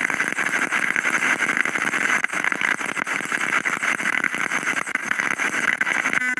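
Spirit box radio sweeping up through the FM band, its small speaker giving out a continuous rush of static. The static is chopped into rapid short fragments as the radio jumps from frequency to frequency.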